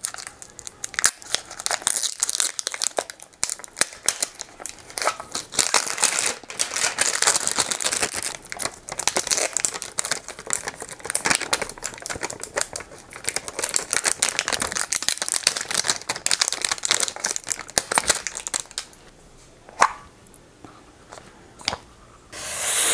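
Perfume packaging being unwrapped and the cardboard box opened close to the microphone: a dense run of crinkling, crackling and tearing. It goes quieter for the last few seconds, with one sharp tick and a brief swish at the very end.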